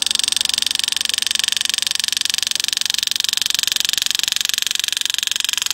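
Power-assisted (pneumatic) engraving handpiece running, a fast steady high-pitched buzz of rapid hammer strokes driving the graver as it cuts into a coin.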